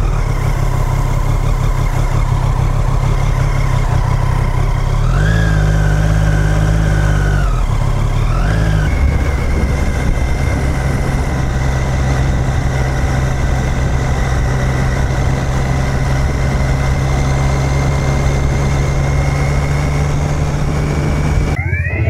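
Motorcycle engine running while riding, with a rush of noise over it. Its pitch rises and falls with the throttle about five and eight seconds in, then holds at a steady cruising note until it breaks off near the end.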